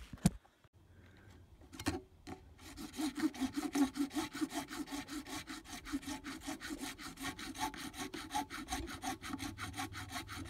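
A short sharp click, then about two and a half seconds in a saw starts cutting through PVC pipe in quick, even strokes, about five a second.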